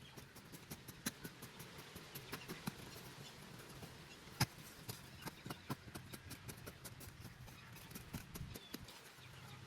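A run of irregular sharp clicks and taps, one much louder about four and a half seconds in, over a low steady hum.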